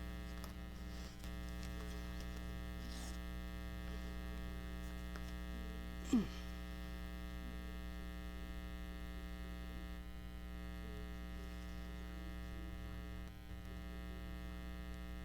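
Steady electrical mains hum with a buzzy edge, faint small handling noises, and one brief sound that falls in pitch about six seconds in.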